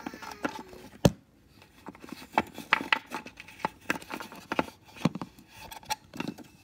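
A cat's meow falls in pitch and trails off at the start. Then comes a sharp knock about a second in, followed by a run of irregular light taps and clicks of small hard objects being handled.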